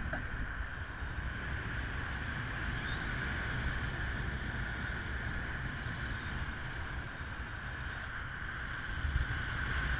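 Wind rushing over a pole-mounted action camera in paraglider flight: a low buffeting rumble with a steady higher rush.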